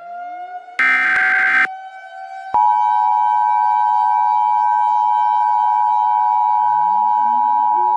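Emergency Alert System-style alert tones over a civil-defence siren: a siren held at a steady high pitch, a SAME digital header data burst lasting about a second, then about two and a half seconds in the steady two-tone EAS attention signal starts and continues. Near the end more siren wind-ups rise underneath.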